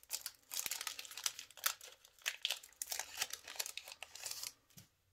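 Trading card booster pack's foil wrapper crinkling and crackling as it is torn open and handled by hand, stopping shortly before the end.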